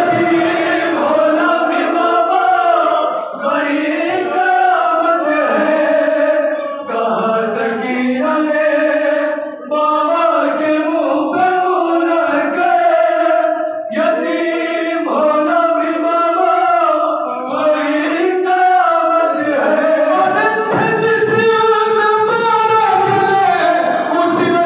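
A noha, a Shia mourning lament, sung by a male lead reciter into a microphone with a group of men singing along in chorus. The singing is continuous, with long held, wavering notes.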